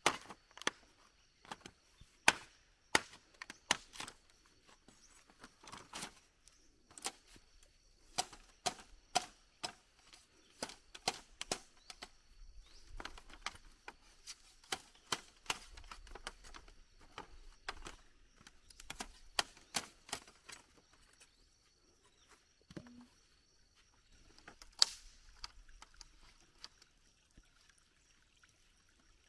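Sharp knocks and cracks of a blade chopping and splitting green bamboo poles, irregular, about one or two a second, thinning out near the end.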